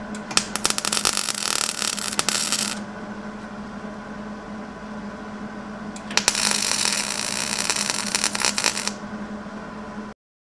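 Hobart Handler 135 MIG welder tack-welding a sheet-steel patch panel into a 1977 Chevy C10 fender: two bursts of crackling arc, each about two and a half seconds, over a steady low hum.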